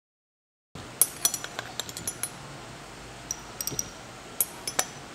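Glass labware clinking: a glass dropper and test tubes tapping against each other and against glass reagent bottles in a string of light, ringing clinks over a low room hiss. The sound cuts in suddenly under a second in, after dead silence.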